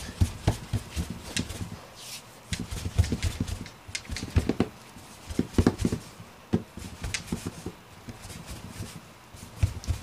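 Hands rolling Play-Doh back and forth on a tabletop into a long rope: irregular soft thuds and rubbing of palm and dough on the table, with a few sharp clicks.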